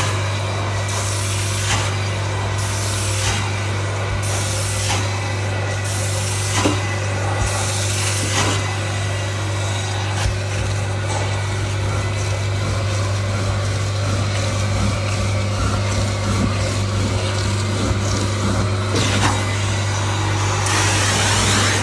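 Carpet-cleaning extraction stair tool drawn over carpeted stair treads, its suction hissing in repeated strokes, about one every second and a half at first, with a stronger rush near the end, over the extraction machine's steady motor hum.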